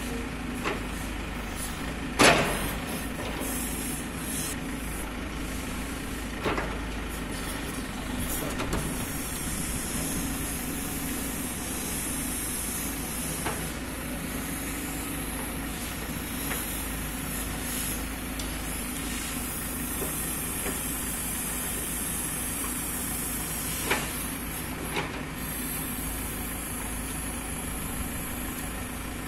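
JCB 3DX backhoe loader's diesel engine running steadily while digging, over a steady high hiss. A sharp knock comes about two seconds in, with a few fainter knocks later.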